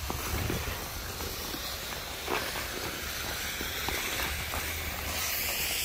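Ice skate blades hissing and scraping over the canal ice as the skater glides along, with a low rumble underneath. The hiss swells near the end.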